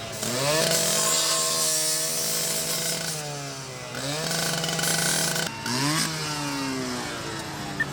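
A small engine revving: its pitch climbs, holds high for a couple of seconds, then drops back, three times over.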